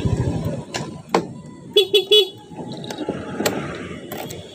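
A vehicle engine running with a rapid low pulse dies away about half a second in, then a horn gives three short toots in quick succession about two seconds in.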